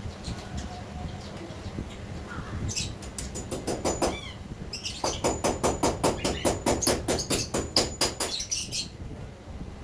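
Quick light hammer taps on the cage's frame, about five a second, in a short run and then a longer, louder run. A bird chirps briefly between them.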